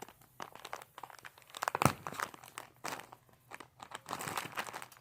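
Plastic sandwich bag stuffed with cotton balls crinkling in irregular bursts as it is handled and squeezed, loudest a little under two seconds in.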